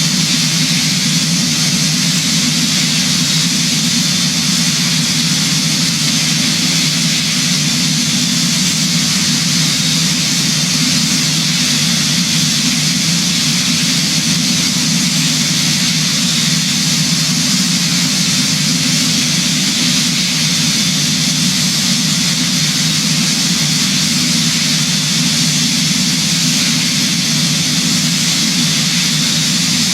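Airliner noise in flight: a steady, even rush of engines and airflow over a low hum, unchanging throughout.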